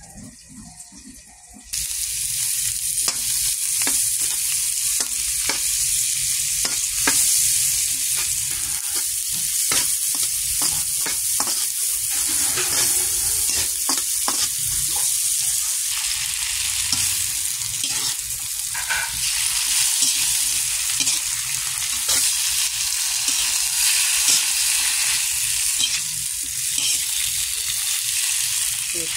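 Chopped garlic and red onion sizzling in hot oil in a nonstick pan, with a spatula stirring and scraping against the pan in short strokes. The sizzling starts suddenly about two seconds in.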